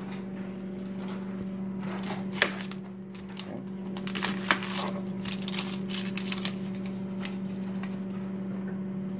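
Microwave oven running with a steady hum while heating, with scattered light clicks and rustles of kitchen handling from about two seconds in.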